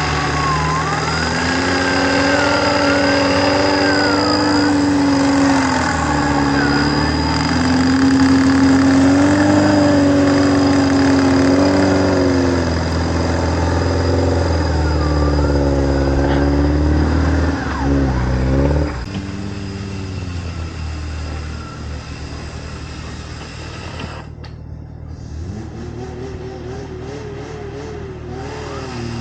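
Off-road 4x4 engine revving up and down under load, then easing off and running quieter from about two-thirds of the way through.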